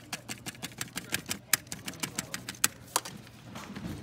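Quick, irregular clicks and taps as a rubber cord gasket is pressed and shimmied into the groove around the filter paper at the rim of a filter trolley's funnel, sealing the paper's edge against leaks.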